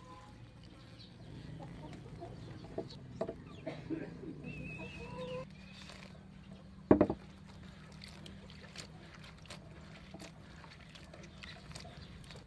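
Chickens clucking now and then, with scattered small clicks and one brief loud thump about seven seconds in.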